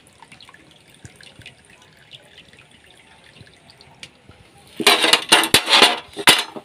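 Faint dripping of water into a metal pan as a scalded goat trotter is held above it. About five seconds in, a knife starts scraping the loosened hair off the trotter on a wooden block, in quick, loud scraping strokes.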